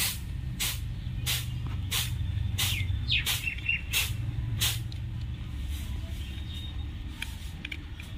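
A sharp click repeating evenly, about one and a half times a second, growing fainter after about five seconds, over a steady low rumble.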